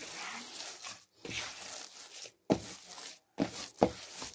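Hands kneading a soft wheat-flour dough in a clay bowl: dough squishing and rubbing against the bowl, with three dull thumps in the second half as it is pressed down.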